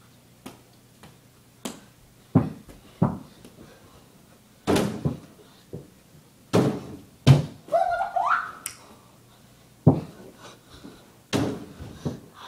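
Irregular thuds and bangs from dunking on a portable basketball hoop: a basketball bouncing, feet landing and hits on the hoop. The loudest knocks come about two, five, seven, ten and eleven seconds in.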